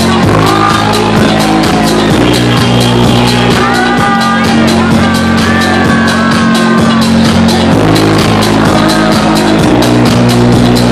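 Loud electronic dance music with a steady beat and heavy held bass notes, played over a nightclub's sound system.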